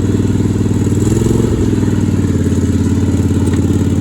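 Small off-road vehicle's engine running steadily while riding a trail, with a brief rise and fall in engine pitch about a second in.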